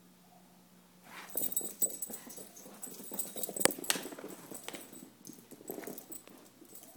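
Dogs scuffling in play, with a dense run of clicks, knocks and rustling that starts about a second in and dies away near the end, mixed with the handling noise of a phone being moved.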